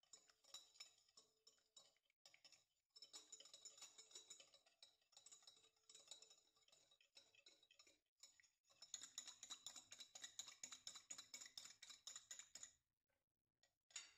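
Faint, quick, repeated clicking of a fork beating egg against the side of a glass bowl, with a few short pauses, stopping shortly before the end.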